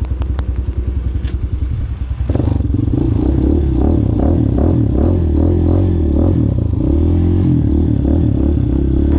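Small dual-sport motorcycle engine idling with an even pulse, then about two seconds in it revs up as the bike pulls away, its pitch rising and falling as it runs through the gears.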